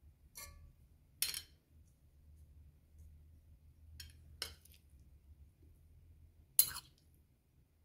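A metal spoon clinking against a china plate and an aluminium pot while scooping food from one into the other: five separate sharp clinks, the loudest near the end.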